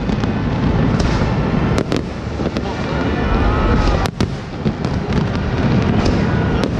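Fireworks display going off without pause: a continuous low rumble of shells bursting, with many sharp bangs, the loudest about two and four seconds in.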